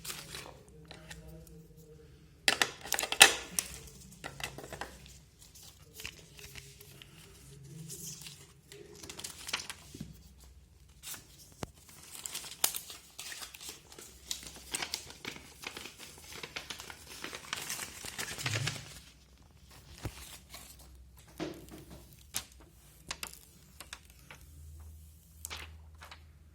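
Packaging being handled during a phone unboxing: plastic or paper wrapping crinkling and tearing in irregular bursts, with scattered clicks. The loudest rustle comes about three seconds in.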